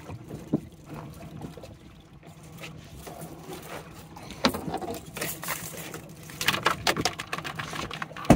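Wire-mesh crab trap clattering and knocking as it is lifted, tipped and shaken over a fiberglass boat deck, with water running and dripping off it. The knocks come in scattered clusters, most about four to seven seconds in, over a low steady hum.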